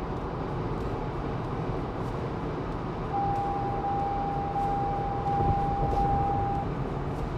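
Steady road and drivetrain noise inside the cabin of a Lexus GX 550 driving on adaptive cruise control. About three seconds in, a steady high warning tone sounds for roughly three and a half seconds: the car's driver-assist alert calling for hands back on the wheel.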